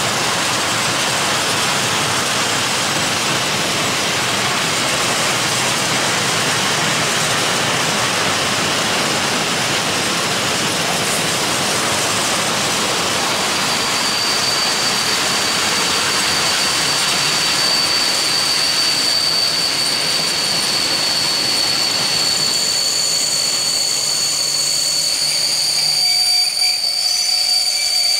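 Long train of open coal wagons rolling past, a steady rush of wheels on rail. About halfway through a high steady squeal sets in and grows louder near the end as the train brakes to stop at the station.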